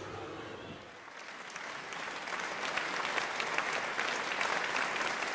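Audience clapping, the applause swelling about a second in and then keeping up steadily.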